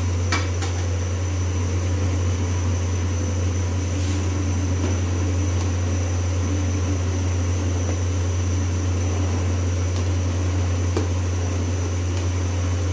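Steady low mechanical hum, with a few faint clinks of a metal ladle stirring soup in a metal pot.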